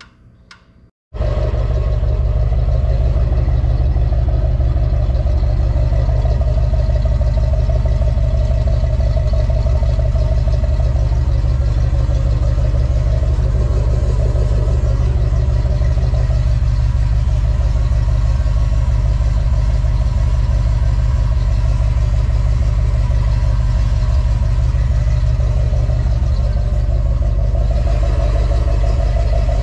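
Truck engine running steadily at one speed, with a heavy low rumble; it starts abruptly about a second in.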